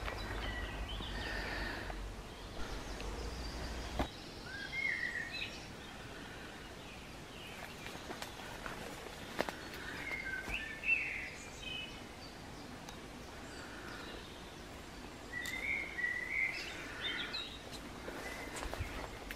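Woodland birdsong: a songbird sings short whistled phrases every few seconds over a soft steady background hiss. A low rumble in the first few seconds stops with a click about four seconds in.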